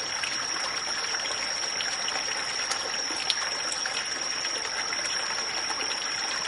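Steady trickle of running water, with one constant high-pitched tone held over it.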